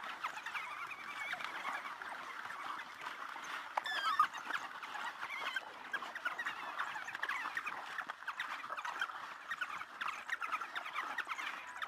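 A pack of African wild dogs twittering: a dense chorus of many short, high, bird-like chirps overlapping throughout, with one louder cry about four seconds in.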